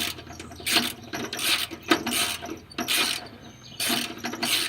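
Socket ratchet clicking in about six back-and-forth strokes, working a coil bracket bolt whose threads are stripped in the engine tin.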